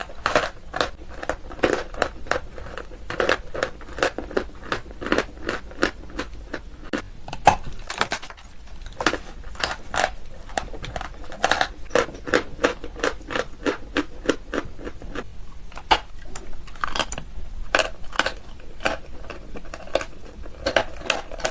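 Close-up crunching of dry white chalk being bitten and chewed: many sharp, irregular crunches and crackles, a few each second.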